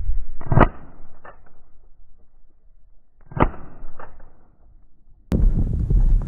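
Two shotgun shots about three seconds apart, each followed about half a second later by a fainter second crack. Near the end a loud rush of wind noise cuts in abruptly.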